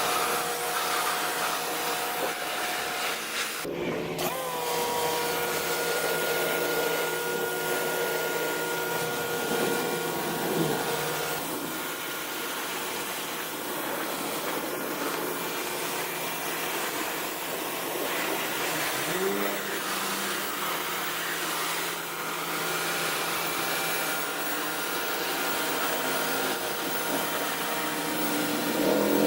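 Greenworks 1600 psi electric pressure washer running steadily: a whining motor and pump over the hiss of the water spray, with a brief break about four seconds in.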